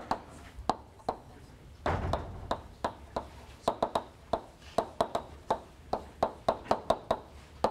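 Chalk tapping and clicking on a blackboard while writing, in quick irregular strokes of several clicks a second. A short rustling noise comes about two seconds in.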